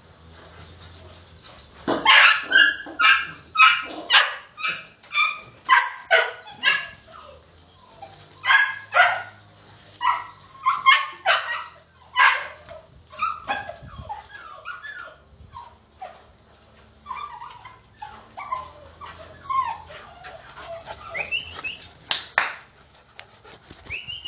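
A litter of young dogs barking in a quick run of loud, sharp barks from about two seconds in, thinning to quieter yips, with a rising whine near the end.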